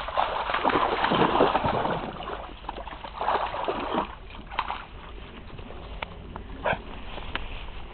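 Briard dog splashing through a shallow brook. The water sloshes loudly for the first couple of seconds and again about three seconds in, then only occasional short splashes and rustles follow as the dog climbs out onto the grassy bank.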